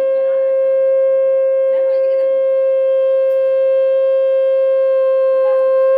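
Conch shell (shankha) blown in one long, steady, unbroken note, with people's voices faintly underneath.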